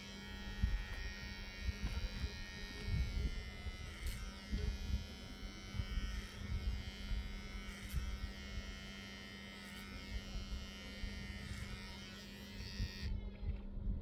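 A steady electric buzz over a low hum, with low rumbling and faint knocks beneath. The buzz cuts off suddenly about a second before the end.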